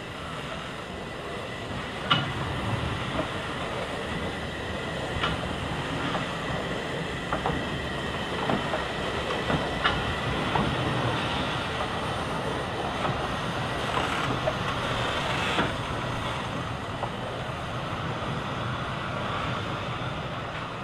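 NER Q6 0-8-0 steam locomotive moving slowly past, with a steady hiss of escaping steam. A few sharp clanks come at irregular moments, the loudest about two seconds in.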